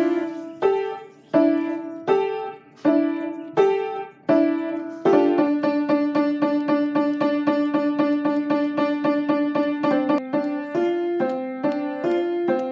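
Piano-like keyboard music: single notes about every three-quarters of a second, then, about five seconds in, a run of fast repeated notes that gives way to the slower pattern again near the end.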